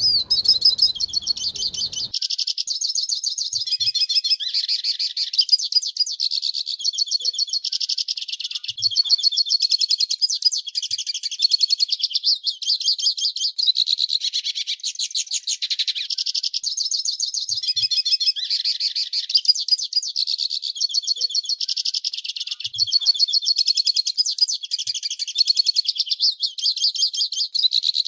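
Hooded siskin singing its fast, metallic twittering song without pause, with a few faint knocks in the background.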